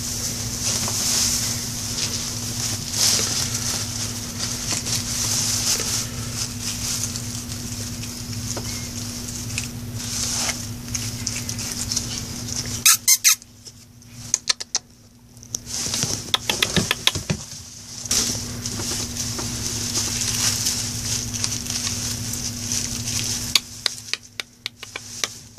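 Metallic tinsel and cellophane crinkling and rustling as a puppy moves through it, in many short crackles, over a steady low hum.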